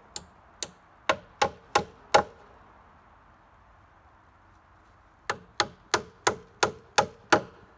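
Hammer driving nails to fix small spacers to the floor joists, holding the insulation in place: a run of six strikes, a pause of about three seconds, then seven more strikes at about three a second.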